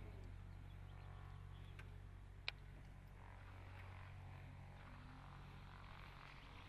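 Near silence: faint room tone with a steady low hum, and one light click about two and a half seconds in.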